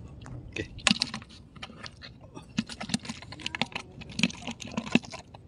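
Small freshly caught fish flapping in a bucket among other fish: an irregular, rapid run of clicks and knocks.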